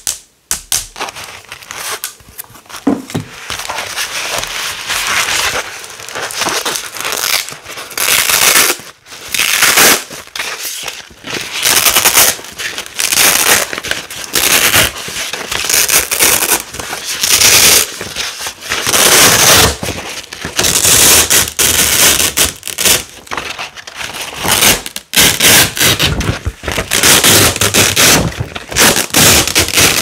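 Large black Velcro hook-and-loop panels being pulled apart again and again: loud, crunchy crackling rips, each a second or two long, with short pauses between.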